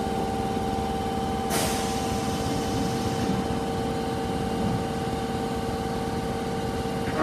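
Osaka Metro Tanimachi Line 22 series train standing with a steady two-tone electrical hum over a low rumble. About a second and a half in, a sudden hiss of released compressed air fades out over about two seconds.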